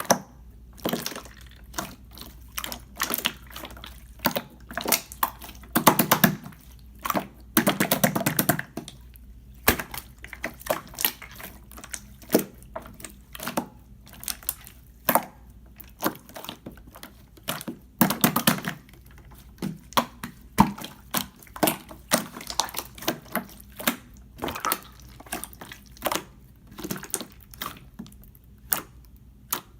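Clear slime being worked by hand, giving irregular sticky clicks and pops, with a few short stretches of denser squishing.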